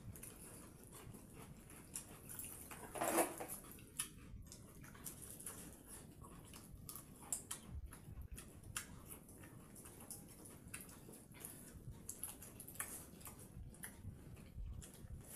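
Quiet eating by hand: fingers mixing watered rice in steel bowls and picking at prawn curry, with chewing and many small scattered clicks. One louder short sound comes about three seconds in.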